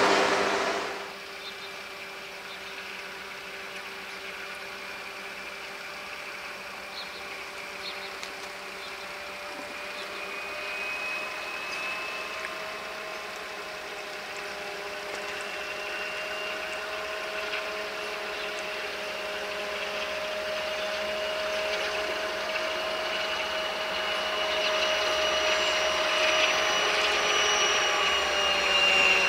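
Class 232 'Ludmilla' diesel locomotive approaching with a freight train: a steady engine whine of several held tones that slowly grows louder as it nears.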